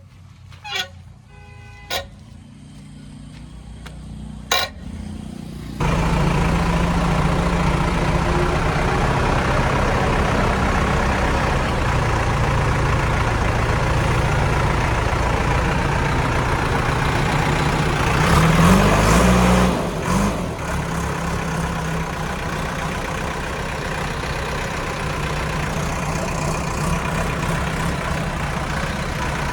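Heavy diesel engine running steadily. It starts suddenly about six seconds in, after a few faint clicks, and revs up briefly about two-thirds of the way through.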